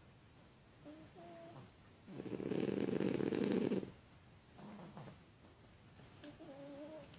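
A pug and a bulldog snoring in their sleep: one long loud snore about two seconds in, with short whistling nasal tones shortly before it and again near the end.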